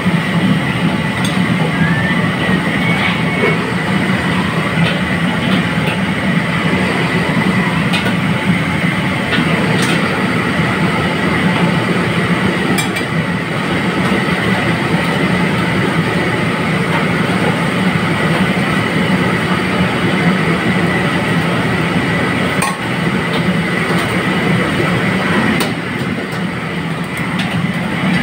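Steady roar of a commercial wok range's gas burner, with oil frying in the wok. A few sharp metal clinks come from the strainer and ladle against the wok.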